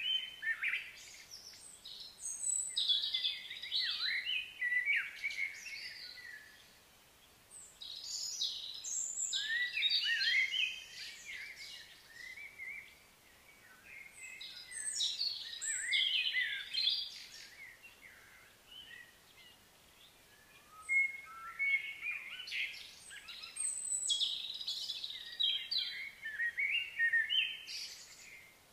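Songbirds singing and chirping in several overlapping, busy phrases, in four spells with short quiet lulls between.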